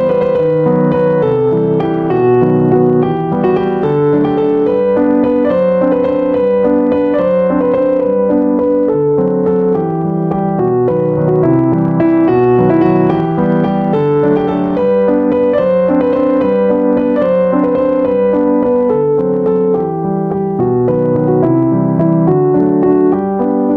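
Background piano music, a steady flow of gently played notes.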